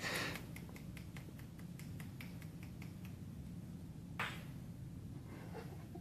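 Light clicks from a pair of yo-yos being thrown and caught in a two-handed trick, several ticks a second, with a brief louder rush of noise at the start and again about four seconds in.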